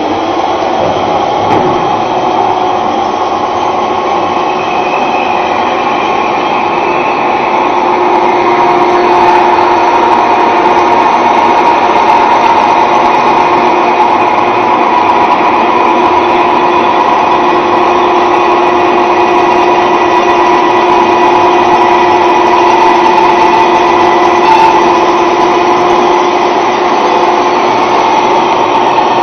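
A 12-spindle multi-spindle drilling machine running steadily: a continuous mechanical whine with several held tones, growing a little louder and stronger about a third of the way in.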